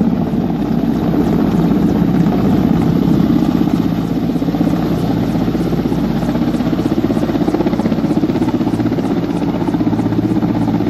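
Helicopter on a rooftop with its engine running and main rotor turning. The sound is a loud, steady mechanical run with a regular rhythmic beat from the blades.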